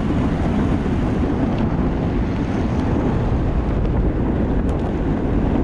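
Steady wind rush on the microphone of a camera moving with an electric skateboard ride, over a low rumble of wheels rolling on asphalt.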